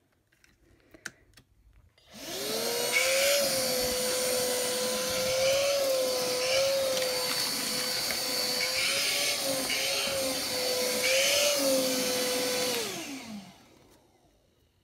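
Philips FC6823 cordless vacuum cleaner switched on: its motor spins up to a steady whine, runs for about ten seconds with a few brief wobbles in pitch, then is switched off and winds down with a falling pitch.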